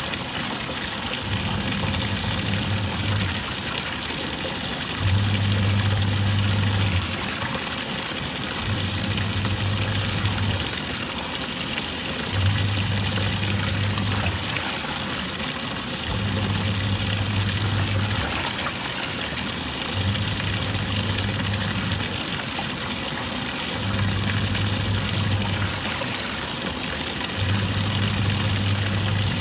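Twin-tub washing machine on its wash cycle: the wash motor hums for about two seconds, stops briefly, and starts again, roughly every four seconds, as the pulsator swirls the water and clothes one way and then the other. The sloshing of water carries on throughout.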